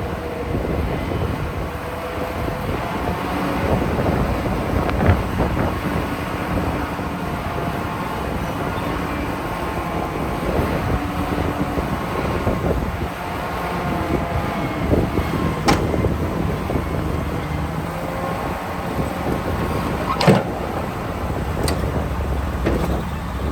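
Heavy earthmoving machinery working: a steady diesel engine rumble with wavering squeals, and two sharp metallic clanks in the second half.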